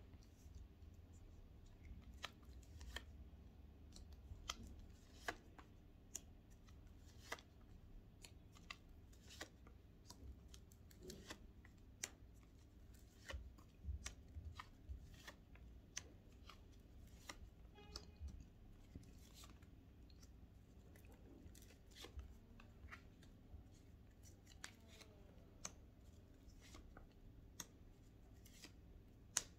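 Tarot cards being laid out and turned over by hand: quiet, irregular crisp snaps and taps of card stock, a few a second, with one sharper snap near the end.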